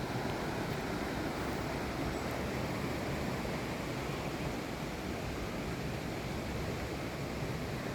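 Steady wash of sea surf along the coast, an even roar with no single wave breaking out from it.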